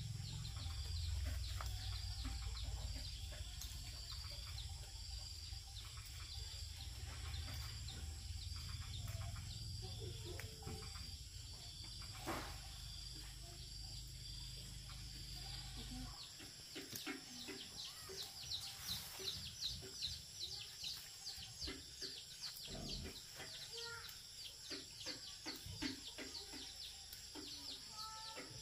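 Birds chirping over and over in high short calls, with a run of quick falling calls in the second half. Under them a low rumble cuts off abruptly about halfway through, after which soft rustling and snapping of leafy plants being picked by hand comes through.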